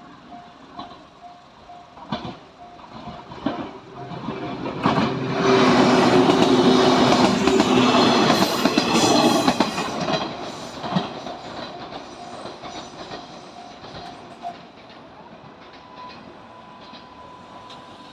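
A Japanese level-crossing alarm rings with a steady repeated ding while a Fukuen Line train passes, its wheels clacking over the rail joints. The train is loudest for about five seconds starting some five seconds in, then fades. The crossing bell stops about fourteen and a half seconds in, and a steady higher tone follows near the end.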